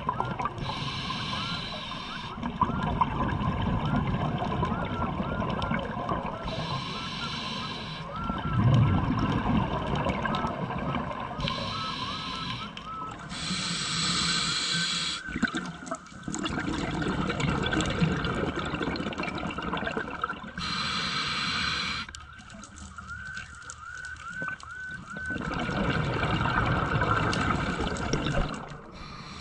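Scuba diver breathing through a regulator underwater: a hiss on each inhale, recurring every few seconds, alternating with the rumbling gurgle of exhaled bubbles.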